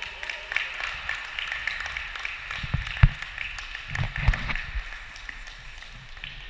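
Light, scattered hand clapping in a large sports hall, with a few dull thumps, the loudest about three seconds in.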